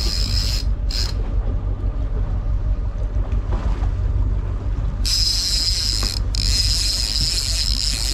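Boat engine running steadily at trolling speed, a continuous low rumble. A steady high hiss joins it about five seconds in.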